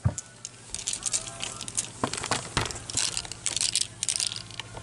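Clothes on hangers being pushed aside along a closet rail: fabric rustling and crumpling, with scattered clicks and scrapes of hangers.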